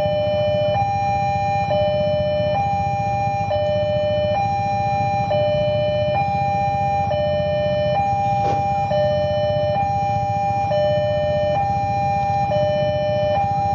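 Railway level-crossing warning alarm sounding its electronic two-tone signal, switching between a high and a low tone a little under once a second, over a steady low rumble.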